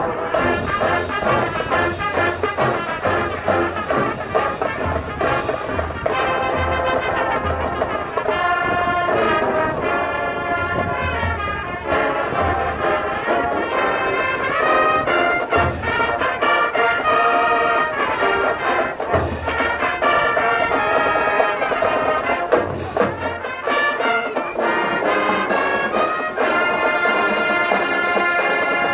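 High school marching band playing its field show: a brass-led ensemble sounding sustained chords and moving lines, with short low drum hits scattered throughout.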